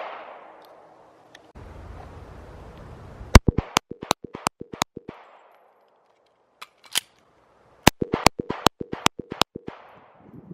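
Gunshots at a shooting range: a shot at the start, then two fast strings of about eight to ten shots each, around three and a half and eight seconds in, each shot followed by a short echo.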